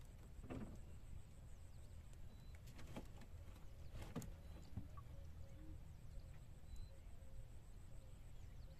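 Quiet outdoor scene with a steady low rumble and a few scattered knocks and clicks as a wire-mesh fish trap is handled in a wooden boat. The sharpest knock comes about four seconds in. Faint bird chirps sound in the background.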